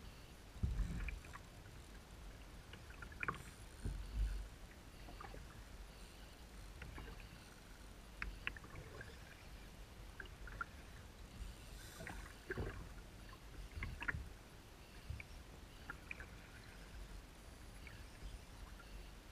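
Small choppy waves lapping and splashing against a plastic kayak hull, with a few low thumps of the hull meeting the water.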